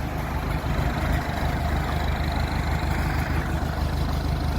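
Massey Ferguson 275's Perkins four-cylinder diesel running steadily at low revs, driving the backhoe's hydraulics while the backhoe is worked.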